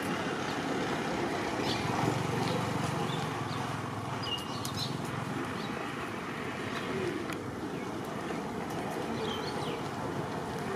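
Steady outdoor background noise, with a few faint, short, high chirps about four seconds in and again near the end.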